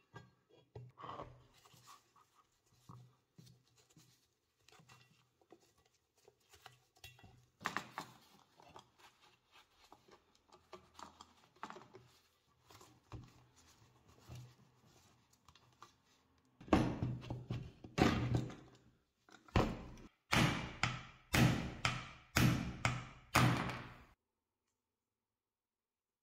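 Hand tools working a rusty nut and bolt out of the cast-iron frame of an antique bread slicer: light metal clicks and scrapes of pliers on the square nut, then a run of about eight louder, sharp metal knocks in the last third.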